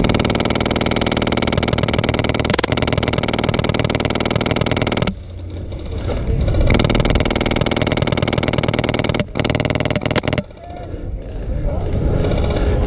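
HPA-powered airsoft Mk48 light machine gun with a Polarstar F2 engine firing long full-auto bursts, a rapid steady buzz of shots. It cuts off about five seconds in, starts again a moment later, and breaks off briefly twice more near the ten-second mark.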